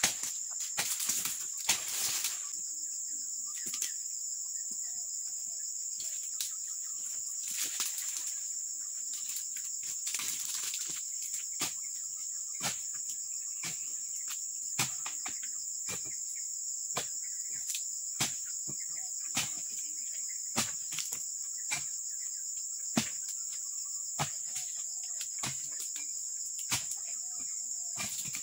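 Sharp knocks of a dodos chisel striking oil palm frond bases during pruning, about one a second, with a few bursts of rustling fronds in the first half. A steady high insect chirring runs underneath.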